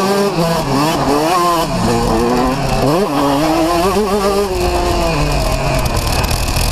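125cc two-stroke motocross bike engine revving hard, its pitch rising and falling with the throttle, with a sharp drop and quick climb about three seconds in. It is heard from a camera mounted on the bike itself.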